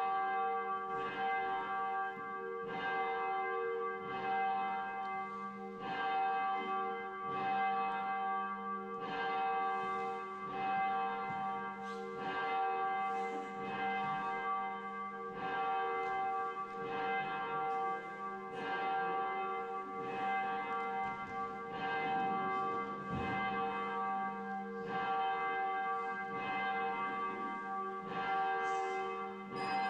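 Church bells ringing steadily, with a fresh strike about once a second over overlapping, lingering tones.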